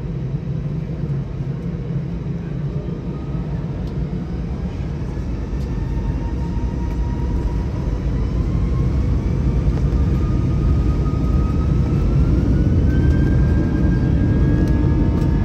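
Airbus A320 jet engines heard from inside the cabin, spooling up for takeoff. A steady rumble grows gradually louder, with a whine that rises in pitch through the middle and levels off near the end.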